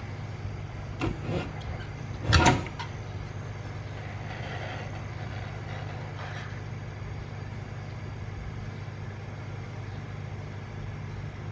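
Steady low hum at a repair bench, with a couple of light clicks about a second in and a short loud clatter of handled tools about two seconds in, during soldering work on an inverter welder's circuit board.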